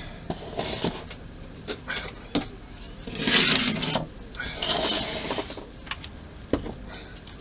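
Rummaging on a workbench: small clicks and knocks of objects being picked up and set down, with two longer rustling, scraping sounds around the middle, like something slid or shifted.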